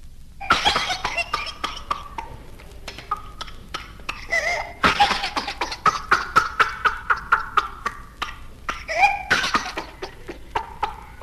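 A child's whooping cough: fits of rapid short coughs strung together, broken by high-pitched whooping breaths in. This is the characteristic paroxysmal cough and whoop of pertussis, caused by Bordetella pertussis.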